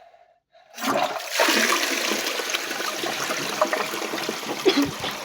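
Toilet flushing: a rush of water starts about a second in, runs steadily for about four seconds and tails off near the end.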